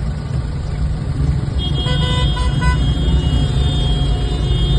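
City street traffic with a steady low rumble of cars and motorcycles. A few short car-horn toots sound about two seconds in.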